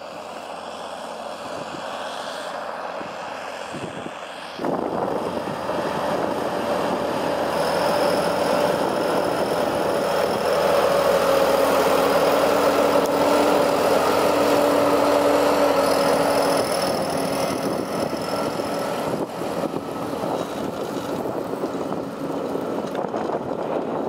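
Fendt 936 Vario tractor's six-cylinder diesel engine working under load as it pulls an eight-furrow reversible plough past. It grows louder to a peak in the middle, where a steady whine rides over the engine, then fades as the tractor moves away.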